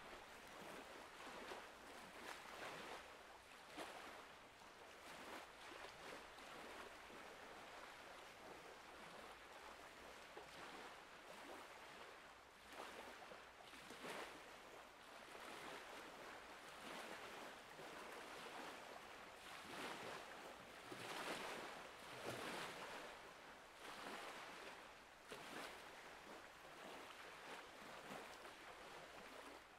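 Faint small waves lapping against the rocky lake shore, a soft wash of water that swells and falls back every second or two, a little stronger about two-thirds of the way in.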